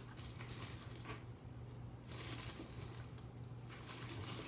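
Faint rustling and crinkling of small items being handled, over a steady low electrical hum.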